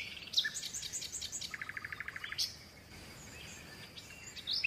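Birds chirping, with short high calls and a fast, even trill a little past the middle.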